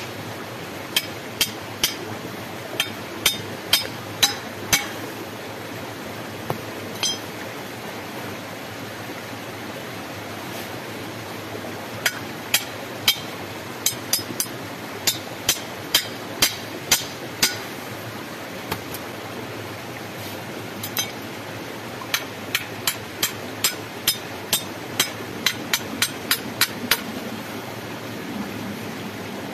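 Machete chopping into green wood: sharp chops about two a second, in three runs with pauses between, over a steady background rush.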